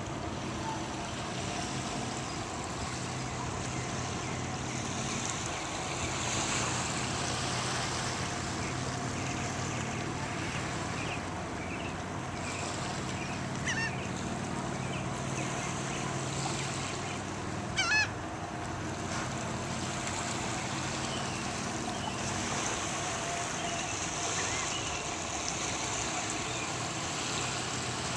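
Small waves lapping gently on a sandy shore under a low steady hum, with gull calls: a scatter of faint short cries and two louder calls a few seconds apart around the middle.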